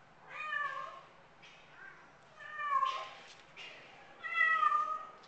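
Frightened black-and-white domestic shorthair cat meowing three times, each call under a second long and falling slightly in pitch, with a faint short call between the first two.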